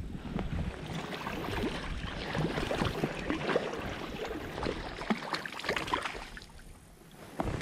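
Irregular splashing and sloshing of water as someone wades through a shallow river; it eases off shortly before the end.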